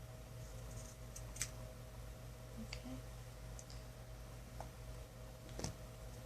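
Scissors snipping hair, a few short sharp clicks spread out, the loudest about a second in and near the end, over a faint steady hum.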